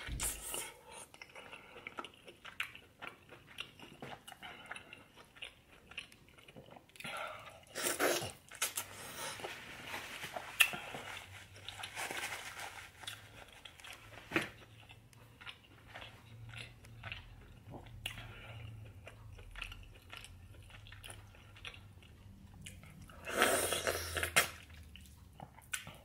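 A person chewing and biting food close to the microphone, with many small mouth clicks, and louder spells of chewing about eight seconds in and again near the end.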